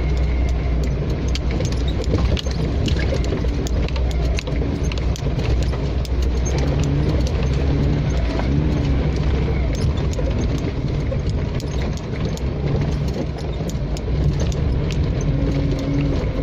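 4x4 off-road vehicle driving over a rough track: the engine runs steadily, its note shifting from about six seconds in, over a constant rattling and knocking.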